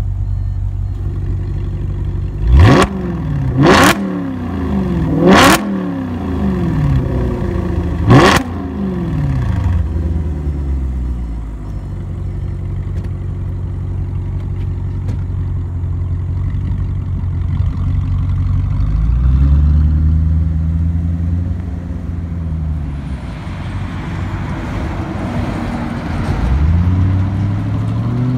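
Audi RS4 Avant's 4.2-litre V8 through an Armytrix valved cat-back exhaust with the valves closed. It gives four quick, sharp free revs in the first eight seconds, each climbing and dropping straight back, then settles to a steady idle. Later it makes a slower, lower rise and fall, and near the end it revs up as the car pulls away.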